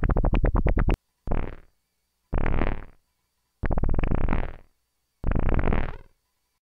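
Moog Werkstatt-01 monophonic analog synthesizer playing a low, buzzy, fart-like patch: a rapid rattling note for the first second, then four short separate notes that each fade away.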